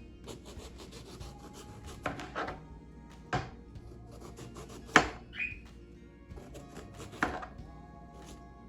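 A kitchen knife peeling the skin off an eggplant: a run of short scraping strokes, with three sharper knocks, the loudest about five seconds in.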